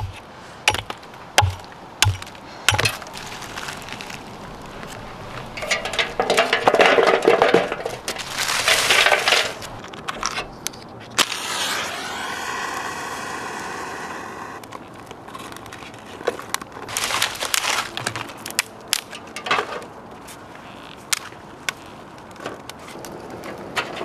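Hatchet chopping a resin-soaked pine log on a wooden chopping block: a run of sharp strikes in the first few seconds, more strikes later on. Between them come rustling and handling noises as kindling is laid in a small wood stove, and a steady pitched sound for a few seconds near the middle.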